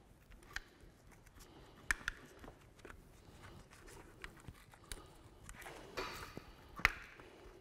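Quiet handling of the scooter's plastic rear mudguard and rubber deck pad as they are peeled and worked loose by gloved hands: a few sharp plastic clicks with soft scraping between them, the loudest click near the end.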